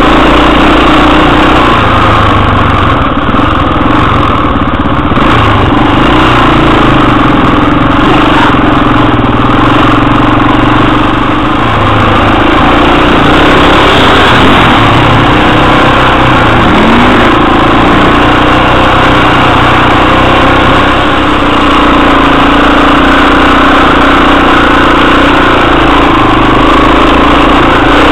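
Enduro motorcycle's single-cylinder four-stroke engine running loud and close to the microphone at fairly steady revs while riding over loose stones and dirt track.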